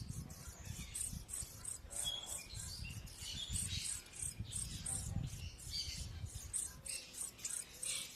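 Short bird calls over a fast, steady chirping of insects, with an uneven low rumble underneath.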